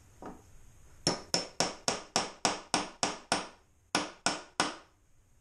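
Claw hammer tapping a steel pin, with its roller, into a hole in a beech plywood rail: a run of nine quick, even, ringing strikes, a short pause, then three more.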